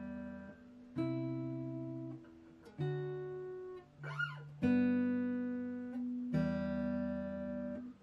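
Guitar playing two-note chord shapes of root and third through a G, E minor, C, D progression. Each dyad is plucked about every two seconds and left to ring. A brief string squeak from the fretting hand sliding along the neck comes about four seconds in.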